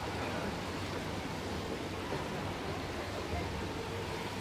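Steady indoor swimming-pool hall ambience: a wash of water noise with indistinct voices in the background.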